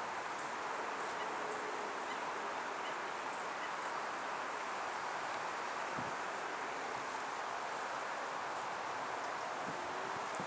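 Steady rushing background noise, with short high-pitched chirps of insects in the field grass now and then.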